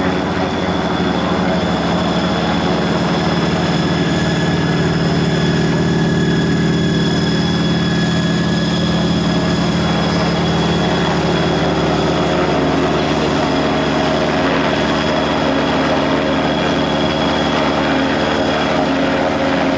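Maverick flying car's engine and pusher propeller running steadily as it taxis, a loud even sound with several pitched tones that shift slightly about halfway through.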